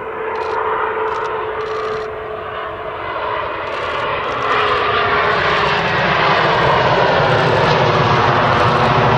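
Bombardier Global 6000 business jet's twin Rolls-Royce BR710 turbofans during landing: a steady jet whine and rushing engine noise as it touches down and rolls out on the runway. It gets louder about four and a half seconds in and stays loud.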